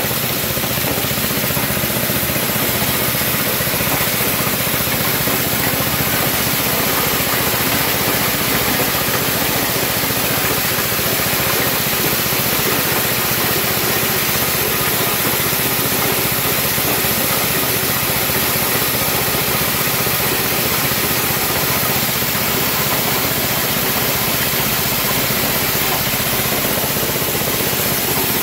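Small petrol engine running steadily, belt-driving a dry coffee huller and its blower as beans are fed through; a loud, even mechanical noise with an airy hiss on top.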